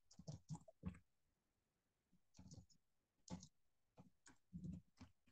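Faint computer keyboard typing: scattered key clicks in small irregular groups.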